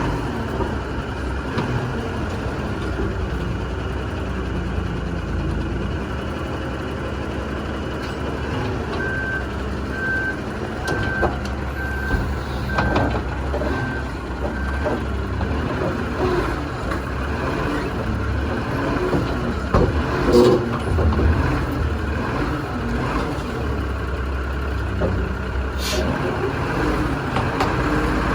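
Heavy truck engine running steadily, with a backup alarm beeping about seven times, roughly once a second, about a third of the way in. A few knocks or clanks come near the end.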